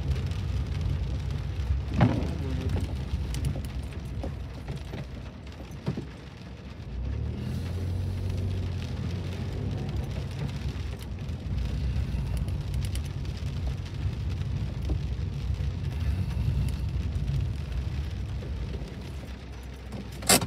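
Inside a car driving on a wet road: a steady low rumble of engine and tyres, with rain hitting the windscreen and a couple of faint clicks.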